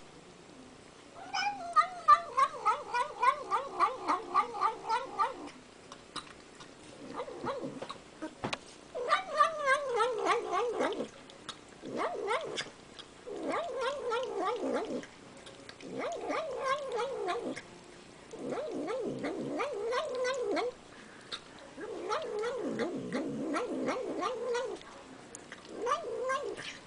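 A cat yowling in a series of drawn-out calls, about eight, each with a wavering, warbling pitch and lasting one to four seconds, with short pauses between them.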